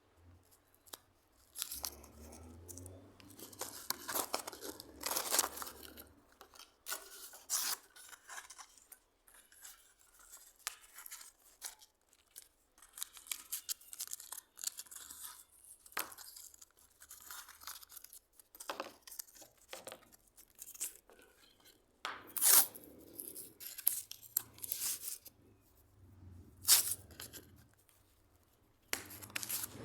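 Irregular hand-worked scraping and rasping strokes on a plane's parts, short and uneven with brief pauses between them.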